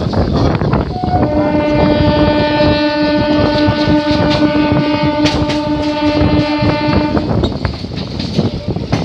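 Train horn sounding one long steady blast, from about a second in until about seven seconds in, over the running noise of an electric local train with wheel clicks over the rail joints.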